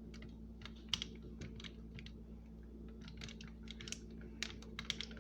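A run of light, irregular clicks and taps, denser in the second half, over a steady low hum.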